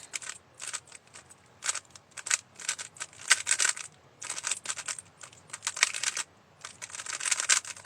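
Speedcube being turned very fast during a solve: rapid plastic clicking and clacking in quick bursts, broken by short pauses between move sequences.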